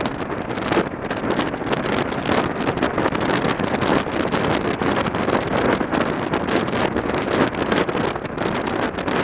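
Wind rushing and buffeting over the microphone of a motorcycle at highway speed, a loud, steady rush with a fluttering level that covers the engine and tyres.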